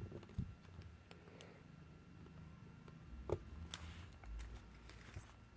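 Faint, scattered clicks and taps of small tools prying at the opened smartphone's internal parts, over a low hum.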